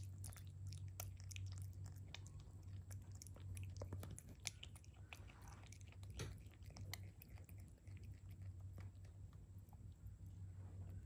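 Common brushtail possum chewing and licking frozen banana: quiet, quick wet clicks and crunches, thinning out after about seven seconds, over a steady low hum.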